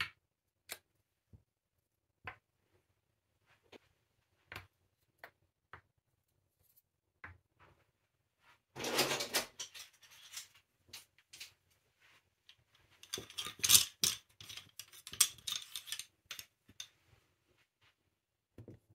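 Bamboo jar lids and small bamboo spoons being handled and set down on a cotton tea towel: scattered soft wooden taps and clicks, then two spells of wooden clattering, a short one about nine seconds in and a longer, louder one from about thirteen to sixteen seconds in.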